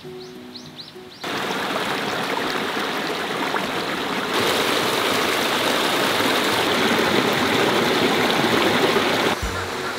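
Small rocky mountain stream tumbling over ice-coated rocks in a little cascade: a steady rush of water that starts about a second in, grows louder near the middle and stops shortly before the end.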